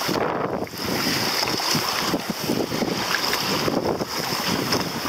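Strong wind buffeting the microphone over choppy water splashing around a kayak as it is paddled.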